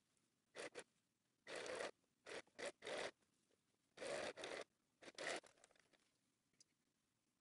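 Domestic sewing machine stitching a seam in muslin in several short stop-start runs, each under a second long.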